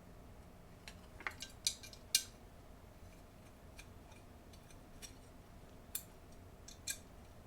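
Light clicks and clinks of small hard parts being handled, a handful spread over several seconds, above a faint steady hum.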